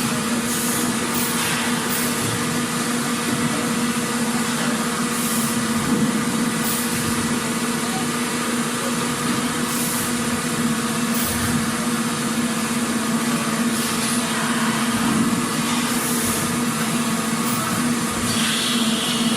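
Factory machinery ambience: a steady mechanical hum with a constant low tone over a broad noise bed, with brief hisses every few seconds.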